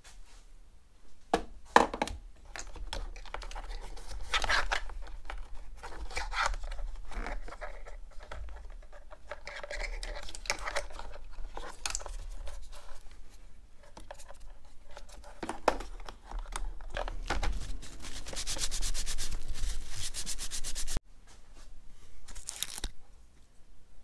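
Hands fitting a USB power outlet on a motorcycle: rubbing, scraping and tearing noises in short spells, a sharp click about two seconds in, and a rapid, even run of fine clicks for about three seconds near the end.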